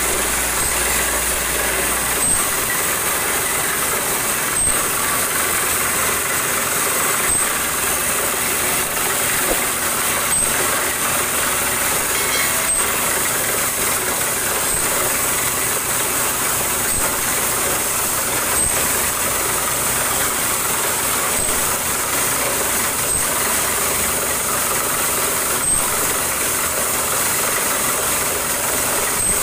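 Portable borewell drilling rig, fed by compressed air through its hoses, running steadily as it drills, a continuous noisy rush with a sharp tick recurring roughly every two to three seconds.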